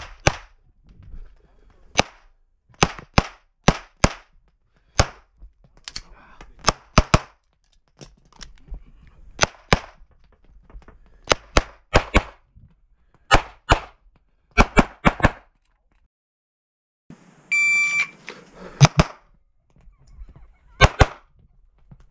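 SPS Vista Star open pistol firing 9mm major rounds on an IPSC stage, mostly in quick pairs with short pauses as the shooter moves between targets. A short steady electronic beep sounds about three-quarters of the way through, followed by a few more shots.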